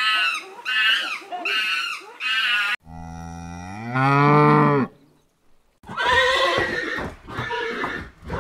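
Farm animal calls one after another: a few short high-pitched calls, then a cow's low moo rising in pitch about three seconds in, and after a short gap a harsher call.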